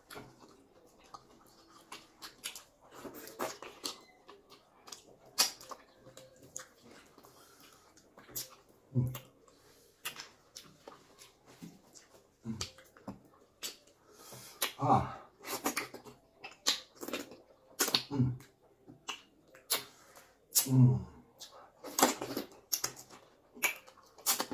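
Close-up eating sounds from fufu with okra soup being eaten by hand: scattered sharp, wet mouth clicks and smacks. A few short vocal sounds come in the second half.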